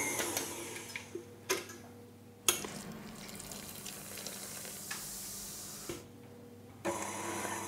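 Stand mixer running, beating chocolate cake batter while Guinness pours in, with a spatula knocking and scraping at the bowl. A hissy churning over a faint steady hum, which cuts off and starts again abruptly several times.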